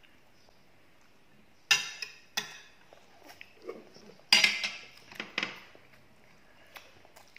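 Metal spoon clinking and scraping against a ceramic serving plate while sauce and squid are scooped out: a series of sharp clinks starting after a quiet opening, the loudest a little past four seconds in.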